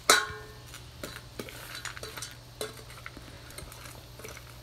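Dry kibble rattling and clicking in a stainless steel dog bowl as it is stirred by hand. A sharp metallic clank of the bowl rings out right at the start.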